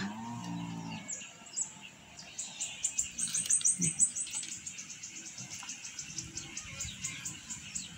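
A rapid run of short, high chirps, many a second, starting about two seconds in and thinning out toward the end, from a small wild creature. A single sharp knock about four seconds in.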